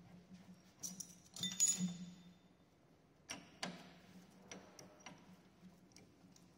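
Light clicks and clinks of an exercise bike pedal, its metal body and toe-strap buckle, being handled and threaded onto the crank arm by hand. The loudest cluster comes between one and two seconds in, then two sharp clicks a little after three seconds and a few lighter ticks.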